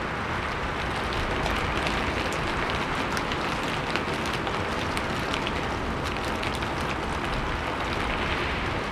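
Heavy wind-driven rain pattering on a roof and wooden surfaces, a dense steady wash of drops with many sharp individual hits, swelling a little about a second in.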